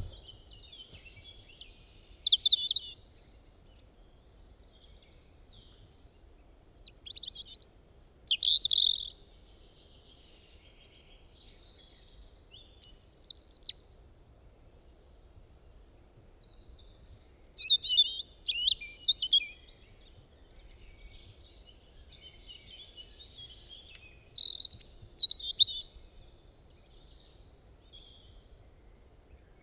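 Robin singing: about five short, varied song phrases, each a second or two long, mixing high thin notes and quick trills, with pauses of a few seconds between them.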